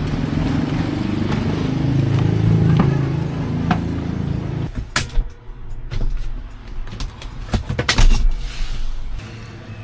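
A motor vehicle's engine running with a low, wavering rumble. About five seconds in the rumble drops away, and a series of sharp clicks and knocks follows, the loudest about eight seconds in.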